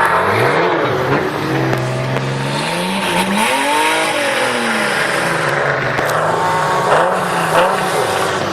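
A car engine held hard on the throttle while the car spins in the sand. Its pitch climbs to a peak about four seconds in, falls back, then holds fairly steady.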